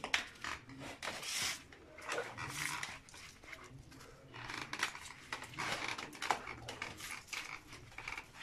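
A wet, lathered dog being scrubbed by hand, giving a run of short rubbing and squelching rustles. The dog pants through it.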